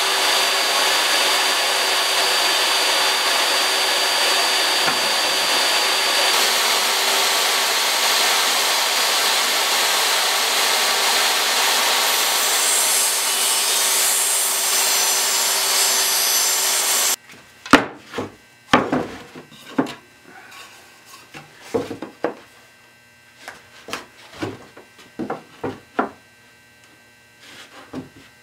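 Jobsite table saw running and ripping a long Douglas fir board lengthwise, a loud steady whine and cutting noise that stops abruptly about 17 seconds in. After that, scattered sharp knocks and clatters of boards being handled and set down on a workbench.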